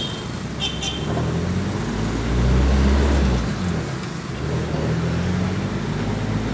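Mitsubishi L300 van's engine heard from inside the cab, pulling away in first gear: the revs climb, fall away about three and a half seconds in, then climb again. This is a test of whether the clutch still catches and drags in first and second after the clutch assembly was sprayed with WD-40.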